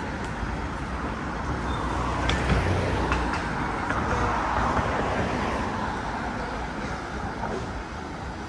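Road traffic: a vehicle passes close by, swelling to its loudest a few seconds in and then fading, over a steady background of traffic noise.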